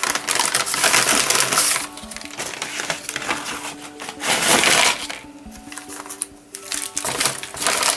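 Paper fast-food packaging being handled, rustling and crinkling in three bursts: one at the start lasting about two seconds, one about halfway, and one near the end. Background music plays under it.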